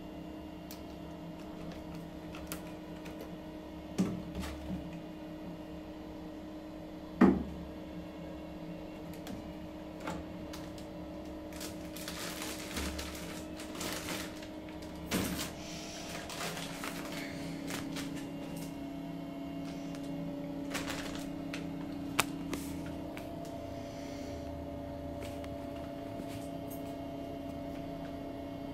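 Scattered knocks and clicks of small objects being handled at a bathroom sink cabinet, the loudest about seven seconds in, over a steady electrical hum whose pitch drops slightly a little past halfway.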